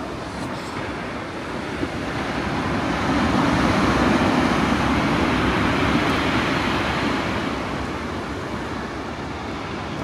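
Heavy storm surf on the Black Sea, breaking and washing up a pebble beach: a steady rushing that swells to its loudest around the middle and eases off toward the end.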